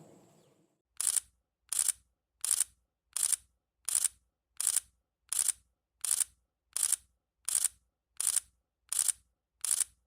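The outdoor ambience fades out, then a sharp, high click, each one a quick double, repeats evenly about every 0.7 seconds, some thirteen times.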